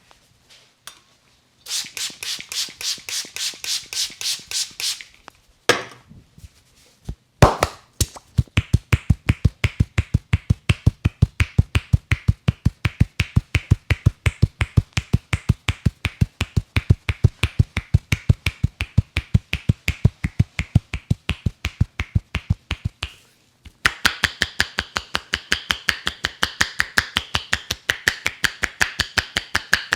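Rhythmic percussive strokes of an Indian head massage: the barber's hands striking the head and shoulders. A short fast run of bright slaps comes first, then a long run of deeper thuds about four a second, then a faster, brighter patter near the end.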